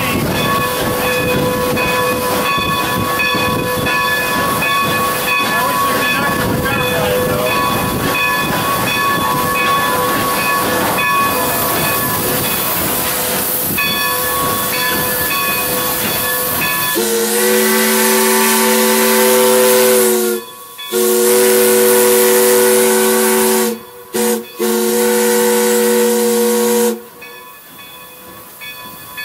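Steam locomotive heard from the cab, running with a steady hiss of steam. About 17 seconds in, its multi-note chime whistle blows four blasts, long, long, short, long: the grade-crossing whistle signal.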